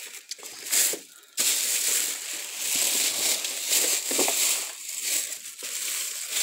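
Thin plastic carrier bag rustling and crinkling as it is handled right at the microphone, with a short lull about a second in.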